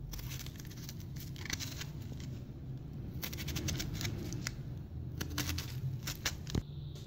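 Kitchen knife cutting through the tough rind of a whole pomegranate, an irregular run of short, crisp scrapes and clicks.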